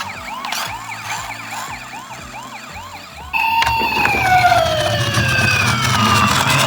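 Toy ambulance's electronic siren. It plays a fast yelping warble of about two cycles a second, then a few seconds in switches to a louder slow wail that sinks in pitch and begins rising again near the end, with a low rumble joining it.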